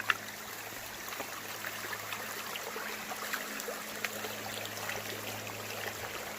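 Creek water running and trickling over rocks, a steady rushing sound dotted with small splashes and drips. A faint steady low hum sits underneath.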